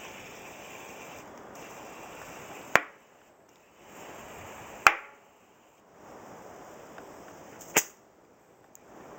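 Air hissing steadily into a tubeless-ready mountain bike tire as it is re-inflated, broken by three sharp pops about two to three seconds apart: the tire bead snapping onto the rim and seating. The hiss stops after the first pop and starts again before each of the next two.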